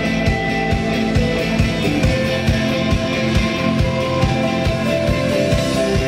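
A live rock band playing: electric guitar over a steady drum beat.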